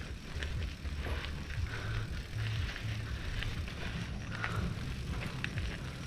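Mountain bike being ridden on a trail: a steady low rumble of tyres and wind on the microphone, with scattered small clicks and rattles from the bike.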